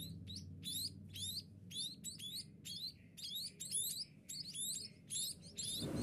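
Fledgling Javan munias chirping over and over: short, high, hooked calls, about two a second.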